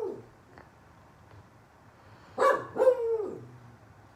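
A dog barking: two barks in quick succession about two and a half seconds in, the second drawn out and falling in pitch, after the tail of an earlier bark at the start.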